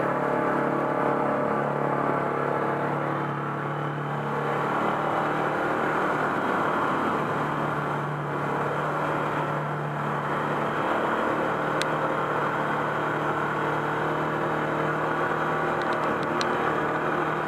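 Side-by-side UTV engine running at a steady pace while driving through muddy water and along a dirt trail, its steady hum over a rush of water and tyre noise. A few sharp clicks come about twelve seconds in and near the end.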